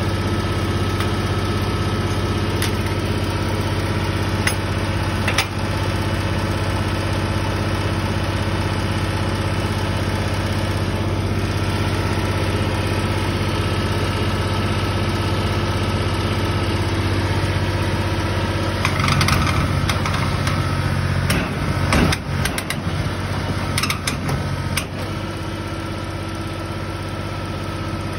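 John Deere compact tractor engine idling steadily, its note shifting in the last third while a few sharp metallic clanks and clicks sound, as the hitch chain is worked.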